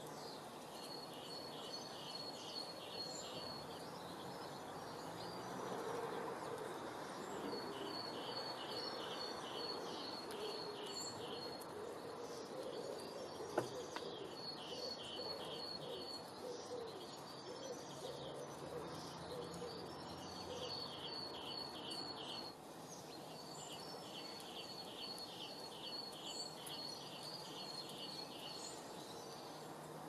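A small songbird repeats phrases of quick high notes, about four notes a second, each phrase lasting a few seconds, over a steady background rush of outdoor noise. A single sharp click stands out about halfway through.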